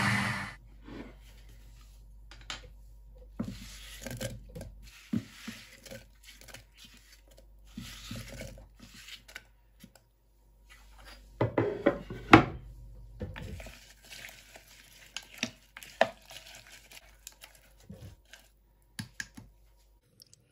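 A blender motor cuts off just after the start. Then come scattered clinks, knocks and scrapes of a spoon and fruit pieces against a glass blender jug, with a cluster of louder knocks a little past the middle.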